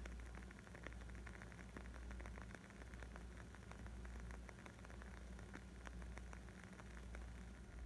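Wood fire crackling faintly: many small, irregular pops and snaps over a steady low rumble.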